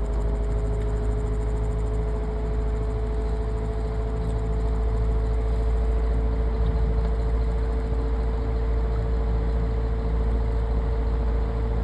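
Electric Air 10-inch desk fan running on its medium speed: a steady motor hum over a strong low rumble of moving air.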